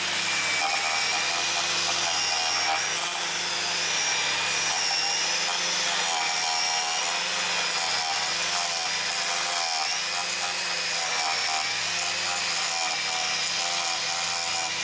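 A small motor running steadily, its pitch wavering a little.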